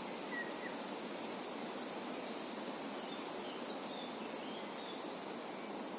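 Steady outdoor background hiss with a few faint, short bird chirps, and faint high clicks near the end.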